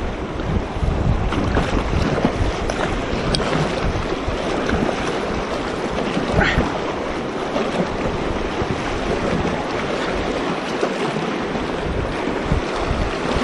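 River rapids rushing and splashing around an inflatable paddleboard, with wind rumbling on the microphone. The low rumble drops away about ten seconds in.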